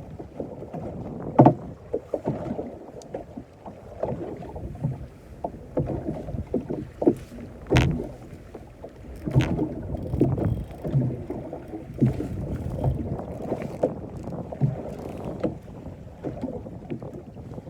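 Small boat on the sea with water slapping against the hull and irregular knocks and clunks, a few sharper ones about a second and a half in and near the middle, with some wind on the microphone.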